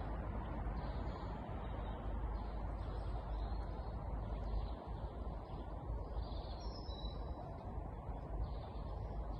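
Outdoor ambience of a few small birds chirping now and then, over a steady low background rumble.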